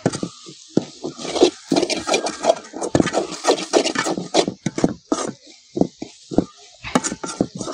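Perforated spatula scraping and knocking against a metal wok in many irregular strokes, while drumstick leaves and scrambled egg are stir-fried in it.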